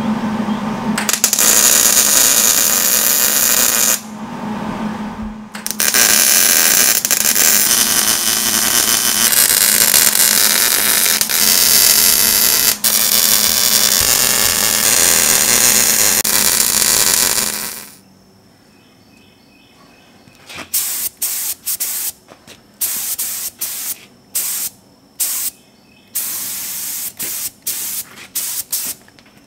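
Wire-feed welder arc sizzling steadily as it welds a steel floor pan into a go-kart frame, with a break of about a second and a half about four seconds in. After a cut, a gravity-feed paint spray gun hisses in a string of short bursts with brief pauses between them.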